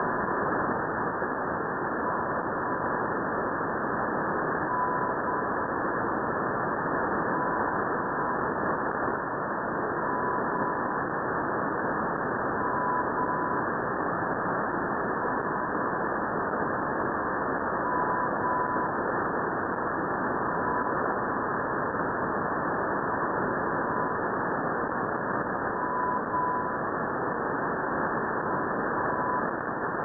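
Shortwave radio hiss with a faint Morse tone near 1 kHz sending the letter M, two dashes, about every two and a half seconds: the Russian Navy single-letter propagation beacon "M" on 4558.4 kHz, heard through an upper-sideband receiver.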